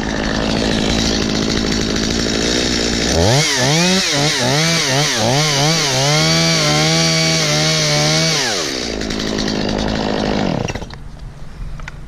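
Two-stroke Stihl MS 250 chainsaw cutting through a coconut palm trunk at full throttle, its engine pitch swinging up and down as the chain loads in the cut, then holding steady. About nine seconds in the throttle is released and the engine pitch falls away.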